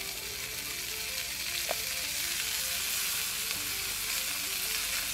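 Skrei cod fillets frying skin side down in a hot pan with freshly added butter: a steady sizzle.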